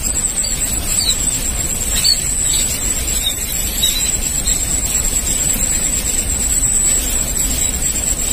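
Steady outdoor rushing noise with a strong low rumble, under a constant high-pitched whine, with a few faint short chirps in the first half.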